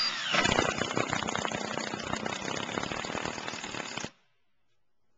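Power driver sinking a Cortex screw into a Trex composite deck board: a brief whine, then about four seconds of dense, rapid rattling clicks that stop suddenly.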